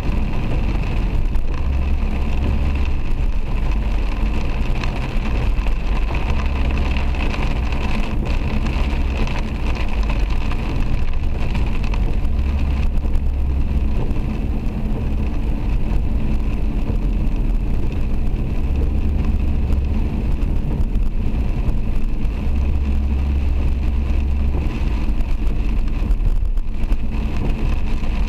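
Steady road noise inside a car driving through heavy rain: tyres on the wet road and rain on the car, with a low rumble that swells and fades every few seconds.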